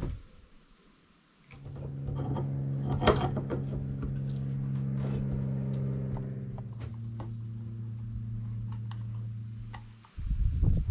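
A motor running with a steady hum. It starts abruptly about a second and a half in, drops slightly in pitch partway through, and cuts off suddenly near the end.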